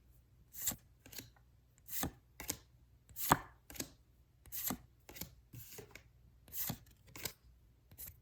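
Pokémon trading cards being flipped and slid off the stack one at a time: short crisp card-on-card swishes and snaps, often in pairs, about one card every second or so.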